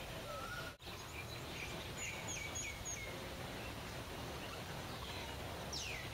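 Birds calling over a steady outdoor background hum: a run of short chirps about two seconds in, and two quick downward-sweeping calls near the end. The sound cuts out for an instant just under a second in.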